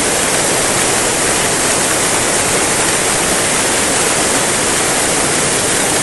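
Waterfall cascading over rocky boulders: a steady, loud rush of white water with no change.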